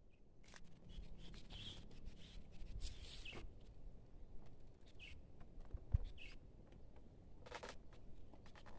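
Faint scattered bird chirps over a quiet rural background. A single dull thump about six seconds in comes from feet stepping onto a bamboo-pole footbridge.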